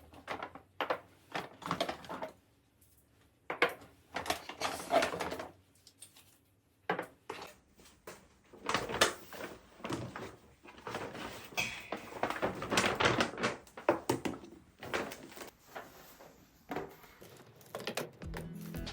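Irregular knocks, light clatter and rustling of plastic containers and food packages being handled and set down, in a small, close-sounding space.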